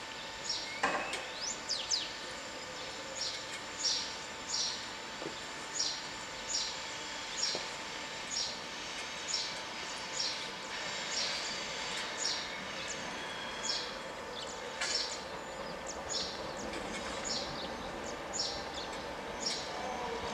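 A bird chirping over and over, a short high falling note repeated a little more often than once a second, over a faint steady hum.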